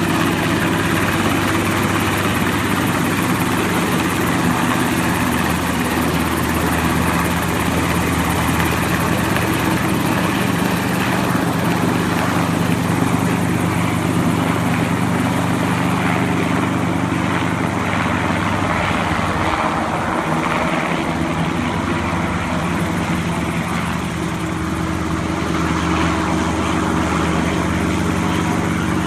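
Helicopter running steadily, its engine and rotor making a constant pitched drone over a wide rushing noise, with a brief dip in the low tones about two-thirds of the way through.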